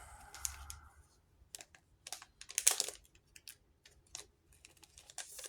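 Trading cards being handled and slid off a stack one by one: a run of short, sharp card clicks and slides, loudest a little under three seconds in.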